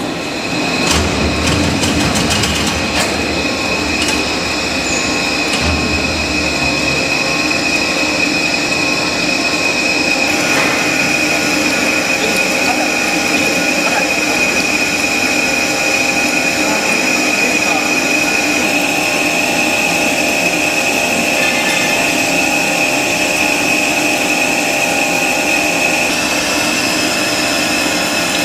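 Heavy-duty lathe turning a large steel rotor shaft, the cutting tool taking a cut with a steady high-pitched whine over the machine's running hum.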